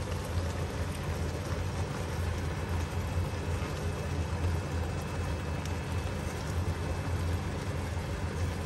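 Giant river prawns sizzling steadily in hot oil and sauce in a frying pan, a continuous crackling hiss over a steady low hum.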